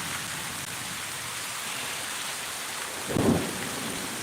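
Steady rain hissing, broken about three seconds in by a short, loud crack of close thunder.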